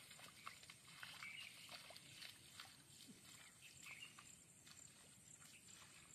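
Near silence: faint rural outdoor ambience with scattered soft ticks and a few faint bird chirps.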